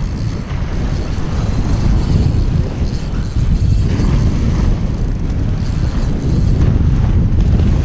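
Wind buffeting the microphone in a steady low rumble, over waves washing onto the beach.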